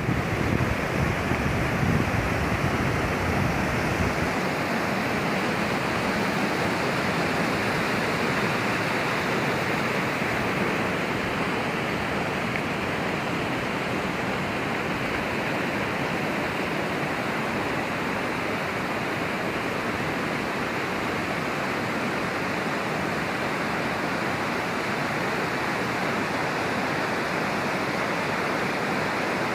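Waterfall: the steady rush of falling water, with a low buffeting for the first few seconds.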